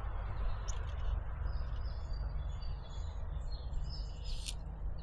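Small birds chirping with short, high calls over a steady low rumble. A single sharp click comes near the end.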